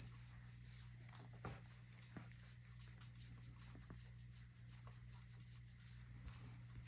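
Faint scratchy rubbing of hands working liquid detangler into a dog's matted leg fur, with a few small clicks, over a low steady hum.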